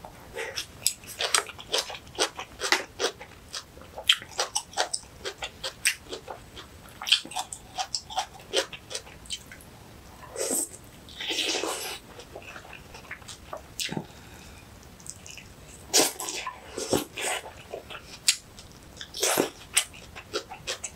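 Close-up eating sounds of a person chewing young-radish kimchi and rice soaked in seaweed soup: wet smacks and crunchy chewing clicks in quick succession. A longer slurp comes around eleven seconds in, and more clusters of slurping and chewing come near the end.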